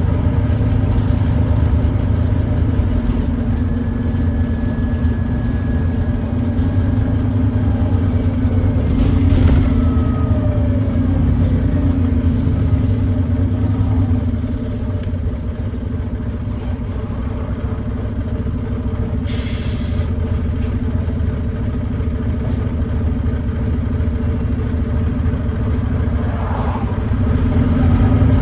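Volvo D9B 9.3-litre diesel engine of a Volvo B9TL double-decker bus running with an exhaust leak, heard from on board as a steady drone. The drone eases off about halfway through and picks up again near the end, with a short hiss in between.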